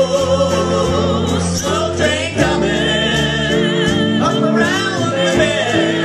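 Live band music: a singer's held notes with a wavering vibrato over guitar and bass chords.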